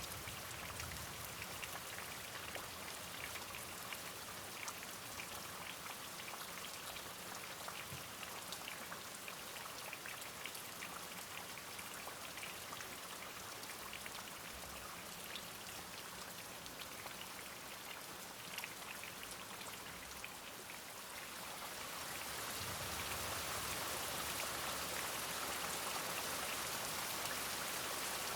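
Steady rain with many separate drops ticking, growing heavier and louder a little past two-thirds of the way through.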